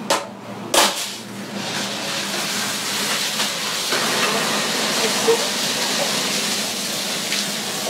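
A hammer knocks twice on a keg coupler on a steel beer keg, then beer under gas pressure sprays out of the keg with a loud, steady hiss.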